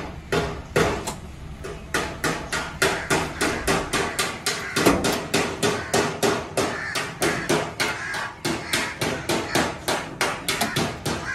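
Steady, rhythmic hammering, about three to four sharp blows a second, beginning about two seconds in.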